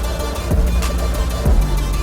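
Hip hop music, an instrumental stretch of a rap track with deep sustained bass and a kick drum about once a second.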